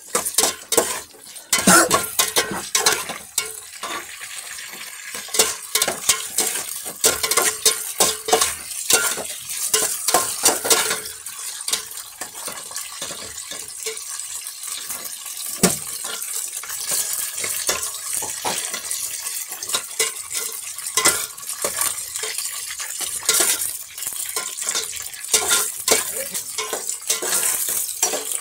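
A utensil stirring and scraping in a pan of frying pork, with frequent irregular clatter against the pan over a steady sizzle.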